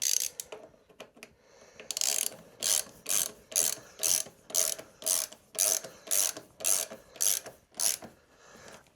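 Hand ratchet wrench ratcheting as a bolt is run down, a burst of pawl clicks on each back-stroke, about two strokes a second, about a dozen in all, stopping shortly before the end.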